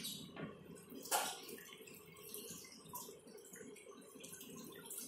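Faint water sloshing and dripping in a plastic bucket as a wet floor cloth is dipped and wrung out, with one sharper sound about a second in.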